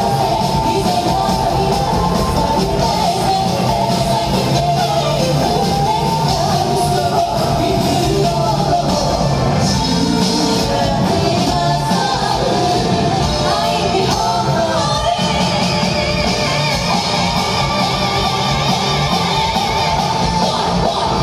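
A Japanese folk-rock band playing live: rock drum kit and bass guitar with shakuhachi, koto, shamisen and taiko, and a singer over the top. Heard through a smartphone's microphone in the audience.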